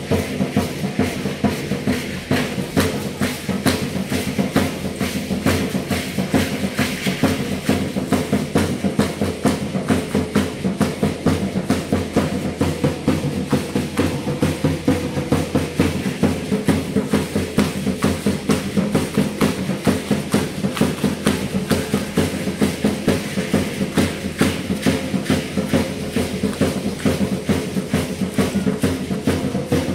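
Drum-led music for a traditional Mexican danza, with a steady, quick beat of percussive strokes that does not let up.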